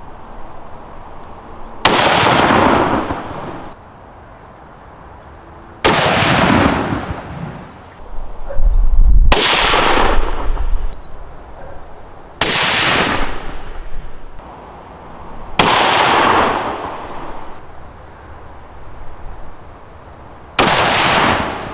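Six bolt-action rifle shots a few seconds apart, each a sharp crack followed by an echo that fades over a second or two. The rifle is fired with and without a suppressor and with a 3D-printed titanium muzzle brake.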